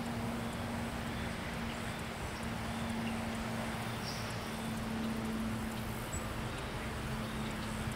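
Steady low drone, one held tone with a weaker one beneath it, over an even haze of outdoor background noise.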